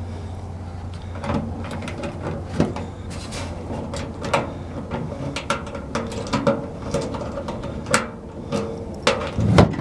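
Handling of a steel tool chest: an irregular series of metal clicks, knocks and scrapes, some with a short ring, over a steady low hum.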